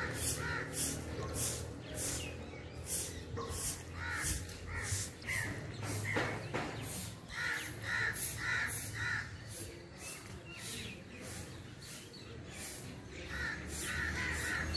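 Rufous treepie calling: three runs of short repeated notes, three to five notes each, a few seconds apart. Throughout there is a steady high pulsing, about two pulses a second.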